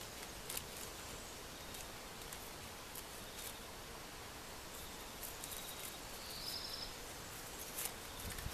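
Quiet steady hiss with scattered light clicks and rustles from a kitten shifting and pawing in a wicker basket at a waved ribbon toy. A brief high squeak sounds about six and a half seconds in.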